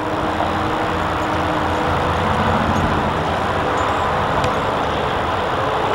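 Steady highway traffic noise: a continuous wash of passing vehicles.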